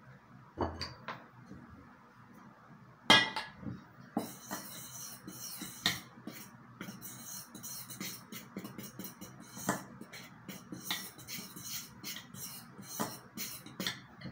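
A fork stirring flour in a stainless steel mixing bowl, clinking and scraping against the metal in quick, uneven taps, with a sharper knock about three seconds in.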